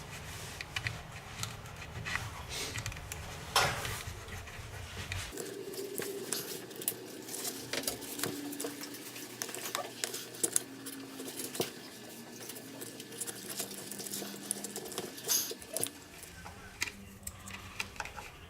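Scattered small clicks, taps and scrapes of handling at a repair bench, with a low hum that cuts off about five seconds in.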